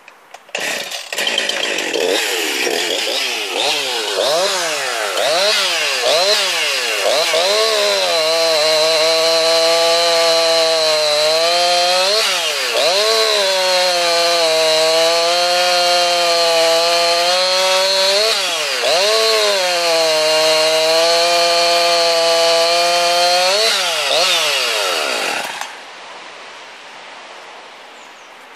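Two-stroke chainsaw running hard: revved up and down in quick swoops at first, then held at a high steady pitch with three brief dips, before cutting off abruptly near the end.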